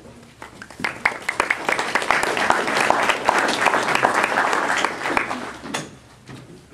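Audience applauding: a few scattered claps about a second in build quickly to full applause, which dies away near the end.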